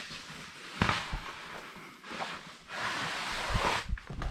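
Scuffing and rubbing of a person moving through a tight rock squeeze, with a sharp knock about a second in and a few dull thumps near the end.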